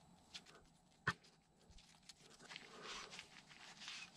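Faint handling of painter's masking tape: a small tick, then a sharp click about a second in, followed by soft scraping and rustling as the tape is trimmed with a blade and pressed down by gloved fingers.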